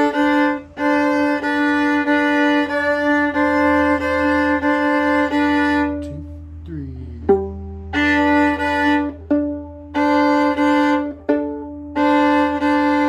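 Violin playing one part of a simple teaching duet, bowed notes in short phrases. It pauses about six seconds in and picks up again just before eight seconds.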